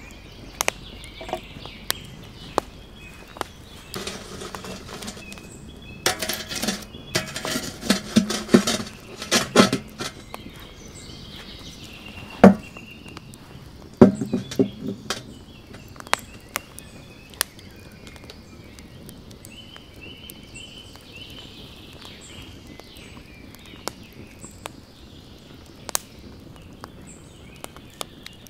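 Wood fire crackling with scattered sharp pops. Midway comes a run of knocks and scrapes, then two heavy knocks as concrete blocks are set down and stacked beside the fire.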